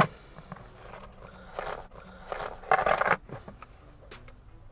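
A sharp click, then scraping and rustling as an honesty charity box is handled and opened to get at the cash inside.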